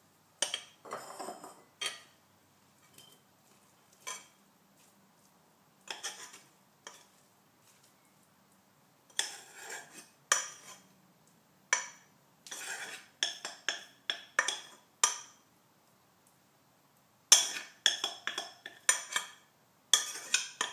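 A metal spoon scraping cooked quinoa out of a Calphalon saucepan into a glass bowl, clinking and knocking against the pan and the bowl. The clinks and scrapes come in irregular clusters with short pauses between them.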